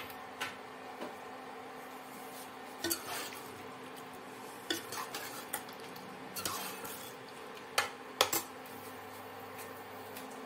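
Metal ladle stirring keema in a pressure cooker pot, with irregular clinks and scrapes against the pot's sides, over a steady low hum.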